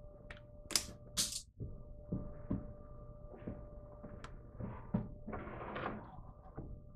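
Small clicks and knocks of tools and parts being handled at a metal lathe, with two short hissing scrapes about a second in, over a faint steady hum.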